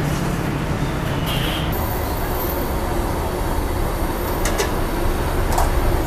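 Steady roar of a roadside wok stall, the gas wok burner and street traffic together, with gravy being stirred in a large wok. Two short sharp clicks, about a second apart, come near the end.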